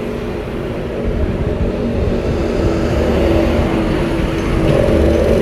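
A motor engine running steadily nearby, a continuous drone that grows slightly louder.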